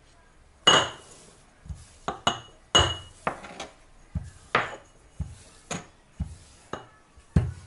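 Kitchen clatter of dishes and utensils being handled and set down: about ten irregular knocks and clinks, the loudest about a second in, the first few with a brief ringing tone.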